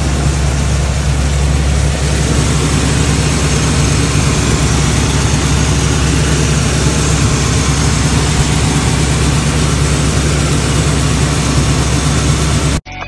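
1978 Pontiac Firebird Trans Am's 6.6-litre V8 idling steadily, heard close up in the open engine bay; the sound cuts off abruptly near the end.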